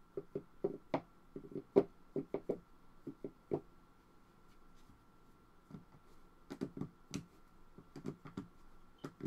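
Light, irregular taps and clicks in short runs, with a pause in the middle, over a faint steady high hum.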